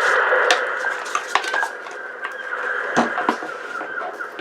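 Parts of an old refrigerator ice maker clinking, knocking and scraping as it is taken apart by hand with tools, with scattered sharp clicks over a steady background.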